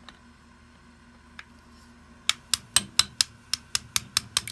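Small hammer tapping a steel punch to drive a pin out of a Glock 19 pistol frame: about a dozen sharp metallic taps, starting about two seconds in and coming faster toward the end.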